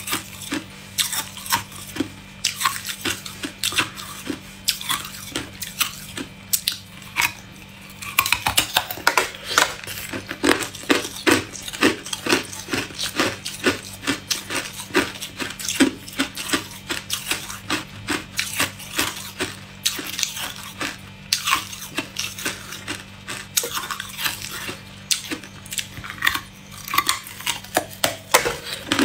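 Hard clear ice being bitten and crunched between the teeth: a dense run of sharp cracks and crackles that grows thicker and louder about eight seconds in. A faint steady low hum lies underneath.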